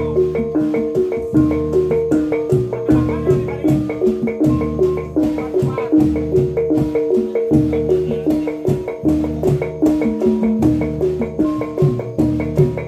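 Gamelan ensemble playing a steady, fast-pulsed dance accompaniment: bronze pot gongs and metallophones ringing short repeating melodic figures, over low thuds and sharp regular clicks.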